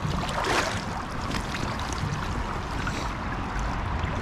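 Steady rush of flowing creek water around a wader, with a brief splash about half a second in.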